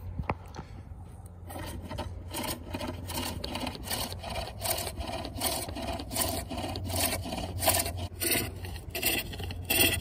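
Steel hook tool cutting a wooden bowl on a foot-powered pole lathe: rhythmic rasping scrapes of the edge on the spinning wood, one with each cutting stroke, starting about a second and a half in.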